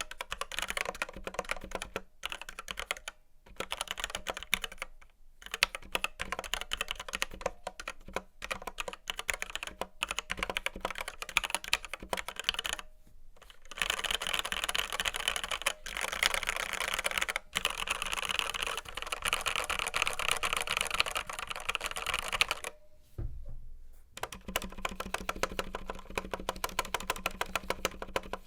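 Typing on a Red Square Keyrox Classic TKL v2 mechanical keyboard with linear Gateron Red switches and PBT doubleshot keycaps: a dense run of keystroke clacks with a few brief pauses, faster in the middle. Near the end it turns to evenly spaced single keystrokes.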